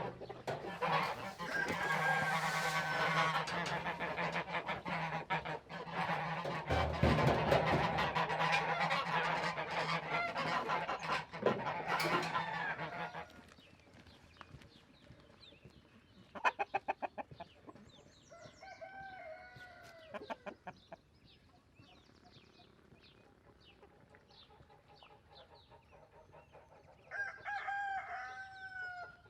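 Chickens clucking and calling, with a rooster crowing near the end. A loud, busy din with a steady low hum fills the first half and cuts off suddenly about halfway through.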